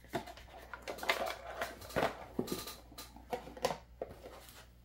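Cardboard packaging and a fabric pouch being gathered up by hand off a wooden tabletop: a string of light knocks, taps and rustles, a few sharper ones in the middle.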